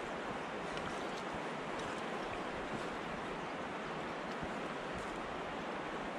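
Steady rushing of river water flowing past the bank.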